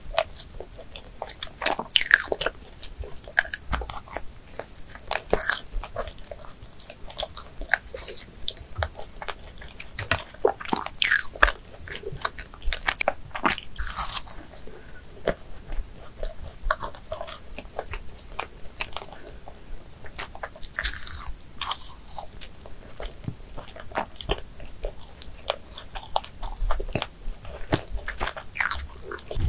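Close-miked eating sounds: biting into and chewing a glazed doughnut, with many short, sticky clicks and smacks of the mouth throughout.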